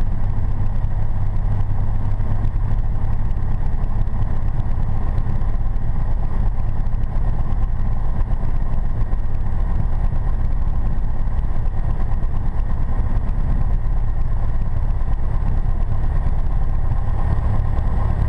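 Single-engine light aircraft's piston engine and propeller running steadily at taxi power, heard from inside the cockpit as an even low drone.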